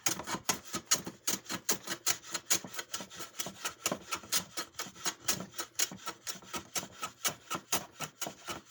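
Hand plane set to a thick cut taking quick, short strokes across walnut butterfly keys, about four or five strokes a second, hogging them down toward flush with the chair seat.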